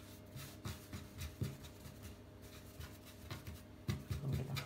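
Hands rolling and pressing a log of multigrain bread dough on a floured wooden board: soft rubbing with light, irregular thumps, a little louder near the end.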